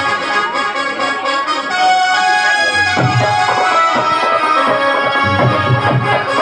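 Live Indian folk-devotional music: a harmonium plays sustained reedy melody notes over repeated drum beats.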